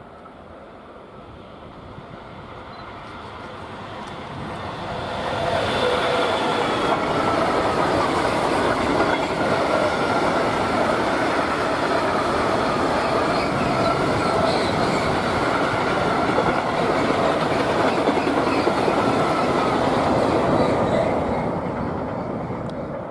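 Freight train passing by: its sound swells over the first five seconds, the wagons run past loud and steady, and it begins to fade near the end.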